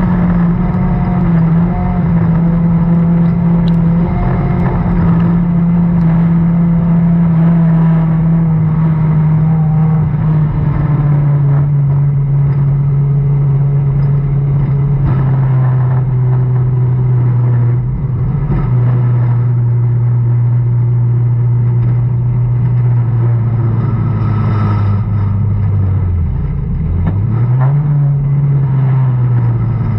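Dirt-track race car's V8 engine heard from inside the cockpit, running loud and steady while its pitch slowly falls. Near the end it drops away sharply, revs back up for a moment, then settles lower.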